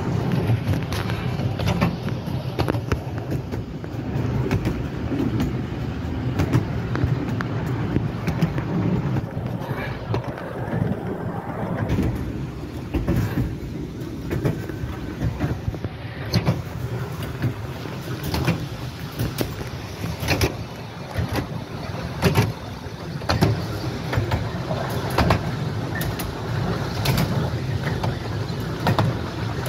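Miniature railway train running along the track, heard from a passenger car: a steady rumble of wheels on rail with frequent irregular clicks and knocks.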